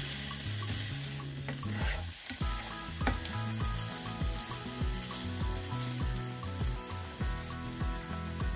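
Sliced smoked sausage, diced onion and garlic sizzling in a hot skillet while a spatula stirs them around the pan, with now and then a scrape or tap on the pan.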